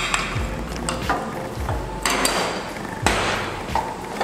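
A small ceramic bowl knocked against a nonstick frying pan to empty chopped onion into melted butter, giving a few sharp knocks. A wooden spatula then stirs and scrapes the onion around the pan.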